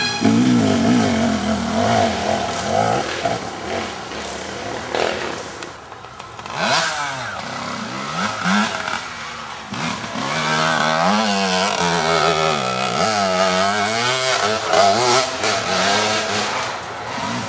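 Off-road motorcycle engines. The first bike revs as it rides away, and the sound dips about five seconds in. Then another bike approaches, its engine pitch rising and falling as the rider works the throttle over rough ground.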